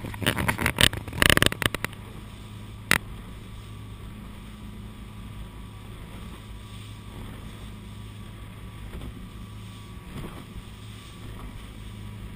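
Motorboat underway, its engine a steady low drone under the rush of water and wind. The first two seconds hold a burst of close knocks and rattles as the camera is set in place, with one sharp click about three seconds in.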